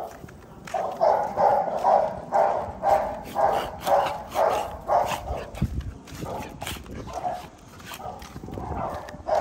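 XL pit bull puppy barking over and over, about two barks a second, thinning to a few scattered barks after about five seconds.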